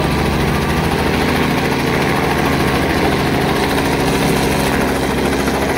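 Small two-bladed Robinson helicopter flying low overhead, its rotor and engine running steadily, with a fast, even beat from the blades.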